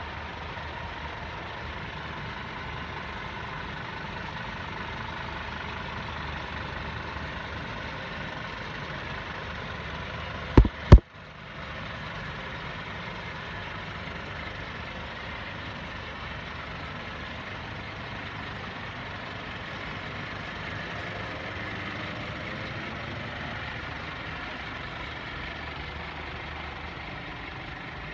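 Scania P230 street-sweeper truck's diesel engine idling steadily. About ten seconds in, two sharp loud knocks come close together.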